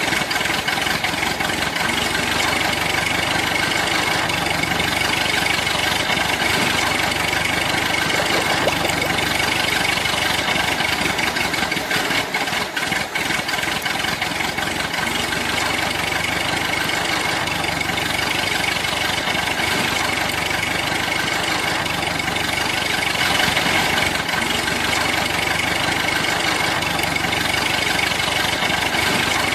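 An engine running steadily at idle, a continuous even drone.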